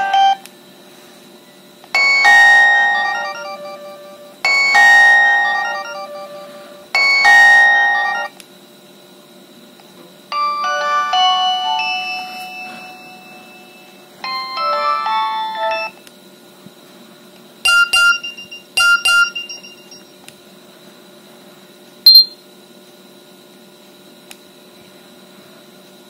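Nokia 6820's built-in ringtones previewed one after another from the phone's speaker. Short snatches of electronic melody are cut off and separated by pauses: three alike near the start, then two longer melodic phrases, two brief chimes, and a short click.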